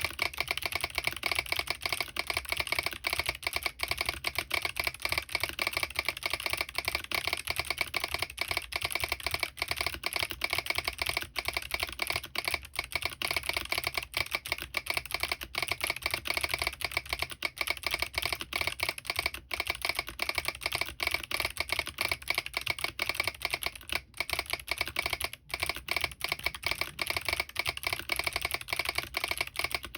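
Fast, continuous typing on a mechanical keyboard with Kailh Box Jade clicky switches, heavy click-bar switches, under thick SP DCS keycaps on an aluminium plate with no foam. A solenoid is switched on and taps along with the keystrokes. The clicks come rapidly and unevenly, with a few brief pauses.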